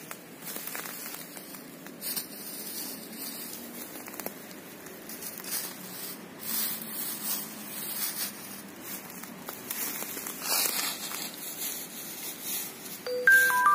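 Irregular crackling and rustling noises, with a short run of falling tones near the end.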